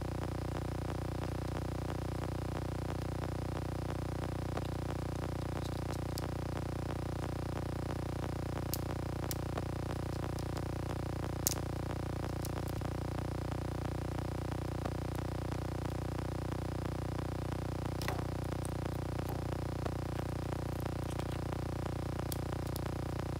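A steady low hum made of several fixed tones, with a few short, sharp clicks scattered through it; the loudest click comes about halfway through.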